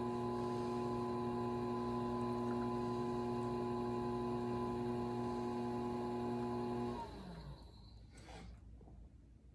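Electric pottery wheel motor running with a steady hum, then winding down with a falling pitch about seven seconds in as the wheel is slowed to a stop. A brief scraping sound follows near the end.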